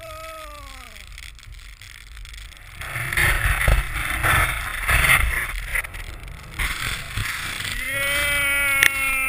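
A snowboarder yelling while riding powder: a short falling whoop at the start, then a few seconds of rushing wind and snow noise, then a long drawn-out yell near the end.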